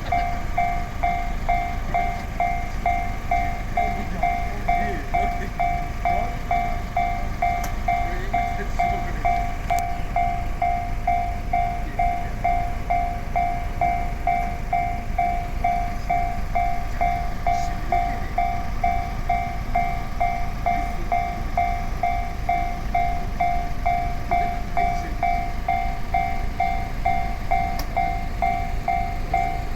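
Japanese railway level-crossing alarm ringing: an electronic bell tone repeating evenly at about two strikes a second, with no break.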